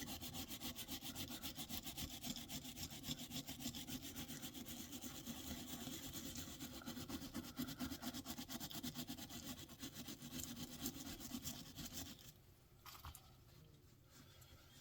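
Rapid back-and-forth scrubbing on guitar pickup and wiring-harness hardware to clean off grime, several quick even strokes a second. The scrubbing stops about 12 seconds in, with one short scrape after.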